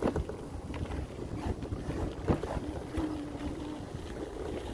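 Wind buffeting the microphone over the rumble of a vehicle riding along a rough dirt road, with a sharp knock right at the start and a louder one about two seconds in.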